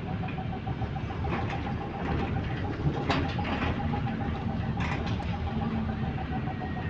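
Bus engine running with a steady low rumble, a faint rapid ticking tone over it, and a few sharp knocks or rattles at about 1.5, 3 and 5 seconds in.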